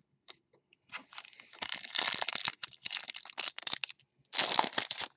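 Foil wrapper of a Panini Select basketball card pack being torn open and crinkled by hand, starting about a second in, with a short pause near the end.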